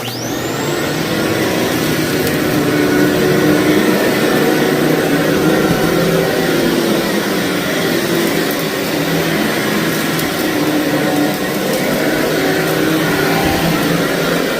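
Vacuum cleaner switched on, its motor whining quickly up to speed, then running steadily as it works over thick, fluffy carpet.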